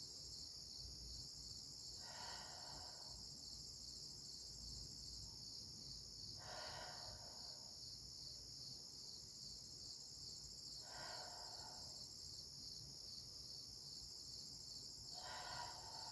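Steady, high-pitched chorus of insects trilling. A fainter pitched call about a second long repeats four times at even intervals of roughly four and a half seconds.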